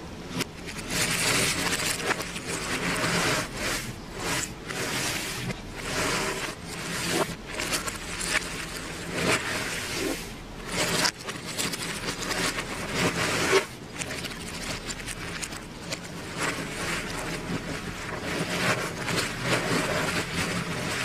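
Hands stirring and spreading a pile of cardboard jigsaw puzzle pieces across a tabletop: continuous rustling and scraping in uneven strokes.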